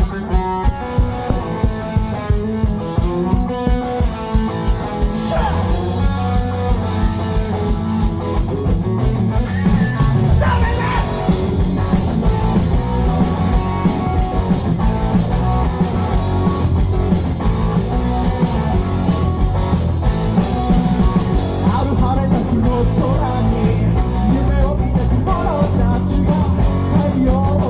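Rock band playing live: an instrumental intro with drums and guitar, a light beat with chords for the first few seconds, then the full band comes in louder about five seconds in.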